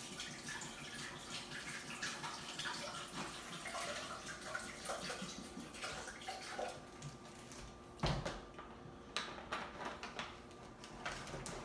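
Water poured from a plastic jug into a blender jar, a fluctuating splashing stream for about eight seconds. Then a sharp knock, the loudest sound here, and a few lighter clicks.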